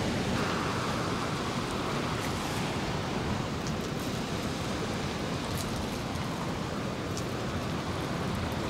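Steady wash of surf and wind noise, with a few faint taps as a sushi knife slices through salmon onto a cutting board.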